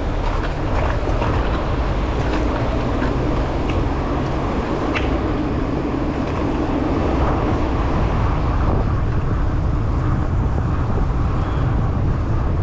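Steady rumble of wind and road noise from riding a bicycle along a city street, with car traffic around.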